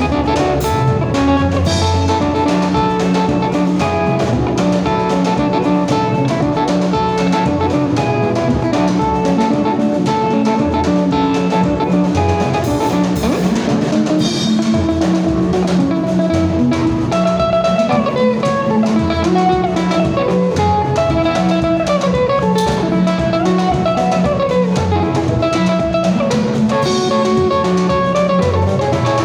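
Live instrumental Lingala band: drum kit, electric bass and keyboard keep a steady groove while the lead electric guitar plays quick, running note patterns.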